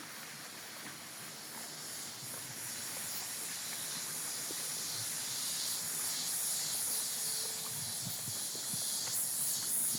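Outdoor nature ambience: a steady high-pitched hiss that grows slowly louder.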